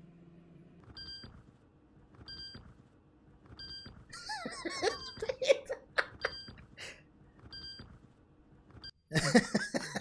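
Refrigerator control-panel button beeps: short electronic beeps about every 1.3 seconds as the panel buttons are pressed in a slow beat. Laughter runs over the middle beeps, and a louder burst of laughter comes near the end.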